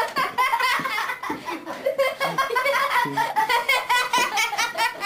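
A person laughing hard: a long run of quick, high-pitched laughs.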